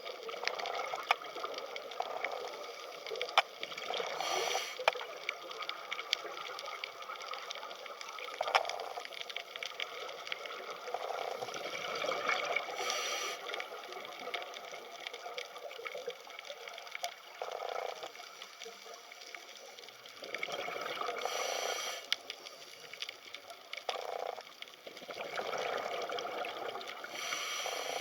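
Underwater ambience: a steady watery hiss full of small crackling clicks, with a louder rushing, bubbly burst about every eight seconds.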